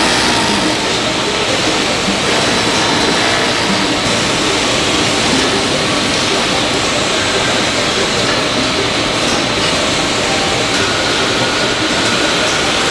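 Steady, loud din of textile factory machinery, with large jet dyeing machines running and drawing fabric rope through; an even noise with no single rhythm standing out.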